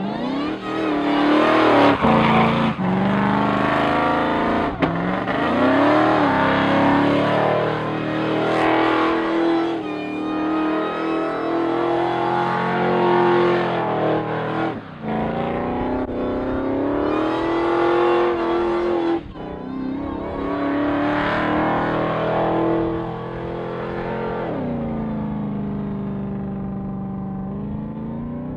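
Supercharged engine of a Toyota Hilux mini truck revving hard during a burnout over the hiss of spinning rear tyres, its pitch climbing and falling again and again with several sudden drops as the throttle comes off. Near the end the revs settle lower and steadier.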